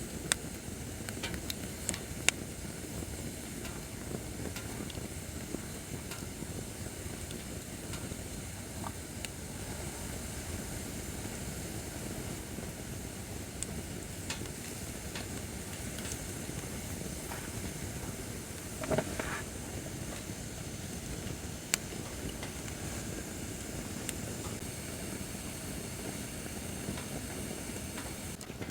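Acacia firewood burning in a campfire stand: a steady rush of flame with scattered sharp crackles and pops, and a brief louder flare of sound about two-thirds of the way through.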